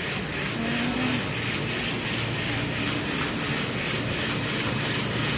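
Steady running noise of machinery, with a faint regular clatter about two to three times a second.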